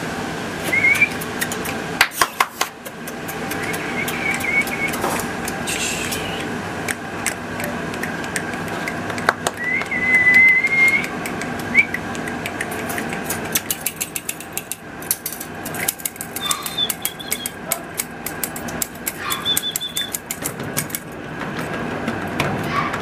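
Beagle puppies whining in short, high-pitched squeaks, with one longer whine about ten seconds in, over a steady background hum. A run of rapid clicks and rattles fills the second half.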